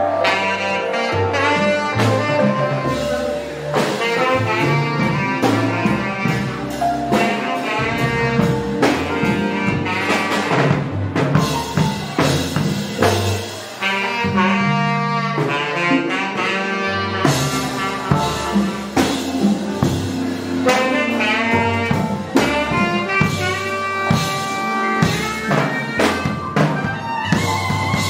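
Jazz music with horns, saxophone to the fore, over a swinging drum kit.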